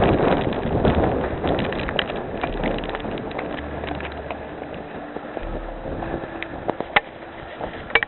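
Wind buffeting the camera microphone in a mountain snowstorm, loudest over the first few seconds and easing off later, with scattered sharp clicks and knocks.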